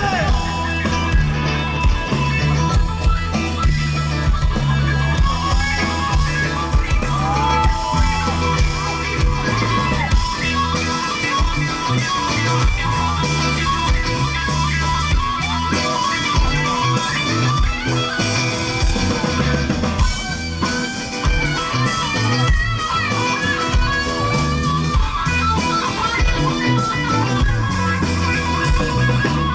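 Live rock band playing an instrumental passage: electric guitar with bent notes over bass guitar and drum kit.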